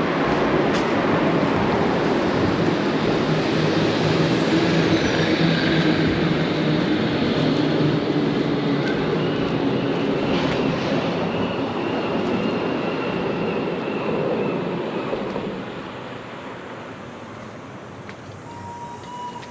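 A heavy vehicle passing close by, loud and steady with a low engine hum and a faint high whine, fading away over the last few seconds.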